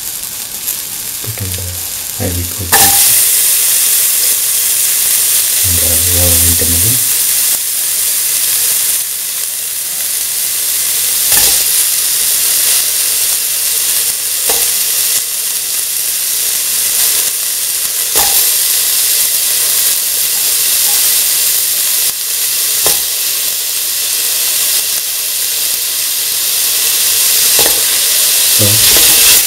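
Onions, shallots and tomato sizzling in hot oil in a steel pan. About three seconds in, the sizzle jumps suddenly louder as pieces of ivy gourd and winter melon go into the oil, then carries on steadily with a few knocks against the pan.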